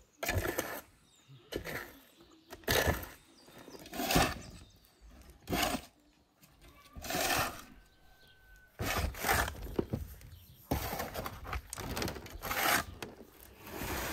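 A shovel cutting into soil and scraping dirt, one stroke about every second and a half. In the last few seconds the strokes come faster and run together.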